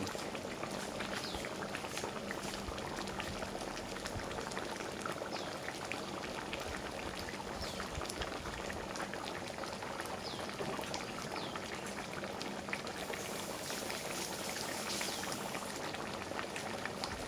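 Goat tripe curry in coconut gravy simmering in a wok: a steady bubbling with many small pops and crackles.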